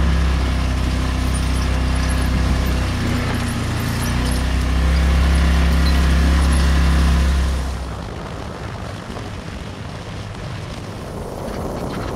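Motor scooter engine running steadily at low speed, dipping in pitch and coming back up about three to four seconds in. Just before eight seconds it gives way abruptly to a steady rush of wind and road noise from riding at highway speed.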